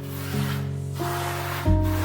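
Soft background music: sustained, piano-like notes changing about once a second, over a steady hiss.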